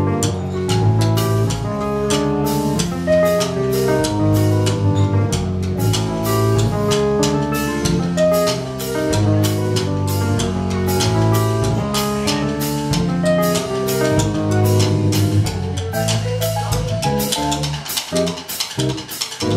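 Live jazz band playing: Hammond organ chords and electric bass over a steady drum-kit beat.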